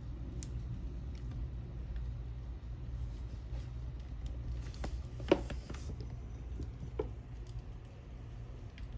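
Steady low rumble of storm wind and rain heard from indoors through a window, with scattered light ticks, a sharp click about five seconds in and a smaller one about two seconds later.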